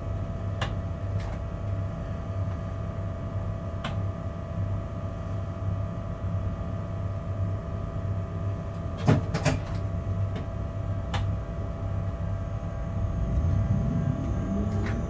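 Cab of a class 186 TRAXX electric locomotive standing at a signal: a steady electrical hum with a low drone, broken by a few sharp clicks and a double knock about nine seconds in. Near the end a rising whine sets in as the locomotive starts to pull away.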